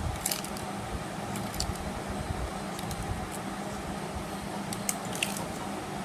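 A few faint, light clicks and ticks from handling the Swiss Army knife and the shoe while stitching, over a steady background hum from a fan or air conditioner.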